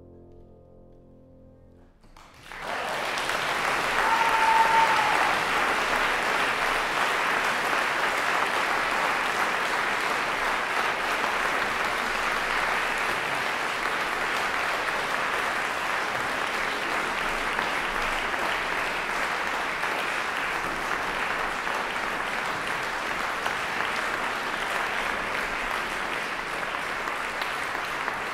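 A final piano chord dies away, then about two and a half seconds in the audience breaks into loud, sustained applause.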